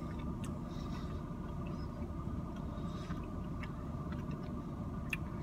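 Steady low hum inside a car's cabin, with a few faint small clicks.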